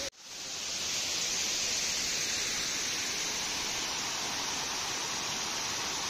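Waterfall: a steady rush of falling water. It cuts out briefly just after the start and swells back within about a second.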